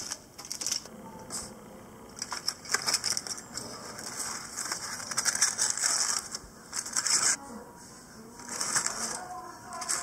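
Aluminium foil being pulled open by hand from around a cooked brisket, crinkling and crackling in repeated bursts of about a second each with short pauses between.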